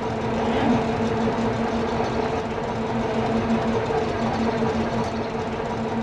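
Steady mechanical running noise with a constant low hum and a second hum an octave above it, unchanging throughout.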